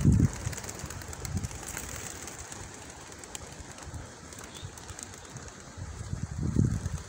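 A large flock of racing pigeons circling overhead just after release, making a soft rustling whirr of many wingbeats. A low rushing sound is loudest at the start and swells again about six seconds in.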